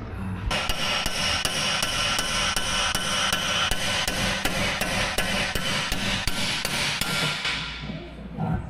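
Rapid, even hammer blows on a bolt-and-tool puller, driving a part out of a stripped Harley-Davidson Sportster frame, the metal ringing under the strikes. They stop about a second before the end.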